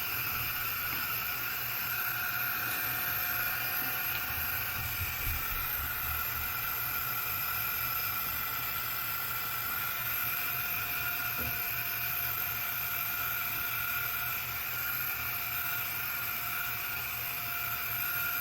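Small battery-powered handheld fan running with a steady whir, drying freshly applied lash-extension glue.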